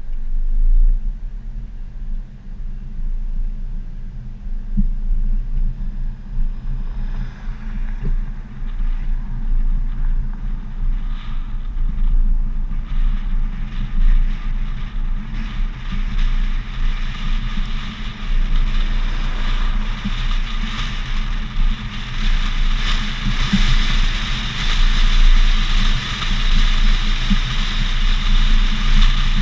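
Vehicle accelerating along a highway, heard from a camera mounted outside on its hood: a low engine hum and wind buffeting, with rushing wind and tyre noise building from about seven seconds in as the speed rises.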